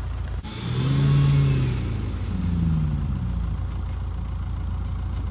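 A vehicle engine revving up and easing off about a second in, then revving again more gently, over a steady low rumble.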